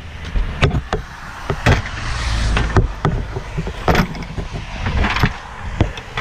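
Irregular knocks and clanks of angle-iron metal bed frames being handled, about seven or eight in all, over a low rumble.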